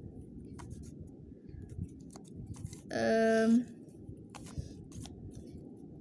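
Plastic twisty puzzle cube, a barrel Redi cube, being turned by hand: a few sharp clicks and clacks as its pieces turn. About halfway through there is a short, steady vocal hum.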